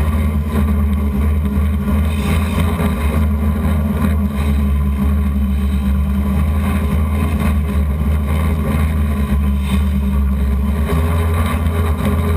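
Hexacopter's six electric motors spinning 12-inch propellers in steady flight, a continuous droning hum with a heavy low rumble, heard from a camera mounted on the craft.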